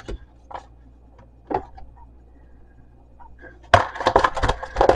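Objects being handled on a kitchen counter: a few separate light knocks, then, a little under four seconds in, a quick run of clicks and rattles.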